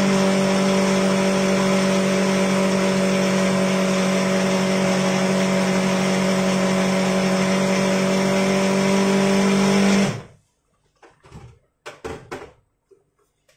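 Small electric food processor running steadily as it purees chickpeas into hummus, then switched off about ten seconds in. A few faint clicks and knocks follow.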